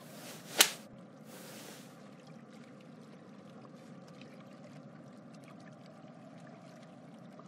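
A single sharp click about half a second in, then a brief hiss, over a faint steady hiss of background ambience.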